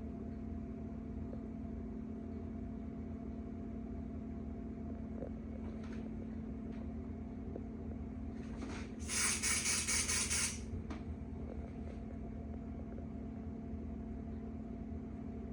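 A roughly one-and-a-half-second hiss of Smoke Sabre aerosol smoke-detector test spray, preceded by a short puff, about nine seconds in, over the steady low hum of a running ceiling fan.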